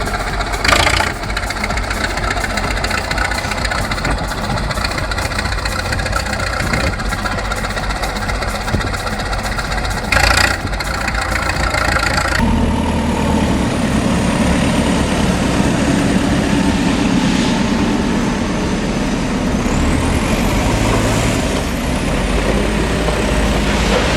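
Engine running steadily, with two short louder bursts in the first half; about halfway through the sound changes abruptly to a different engine running, with a high whistle rising and falling near the end.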